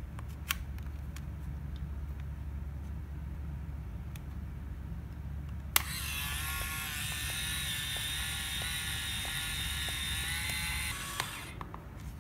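A few small handling clicks, then a sharp click about six seconds in as the rewind button of a Fujifilm Chic Motor is pressed, followed by the camera's small rewind motor running with a steady whir for about five seconds as it winds the film back into the canister, stopping shortly before the end.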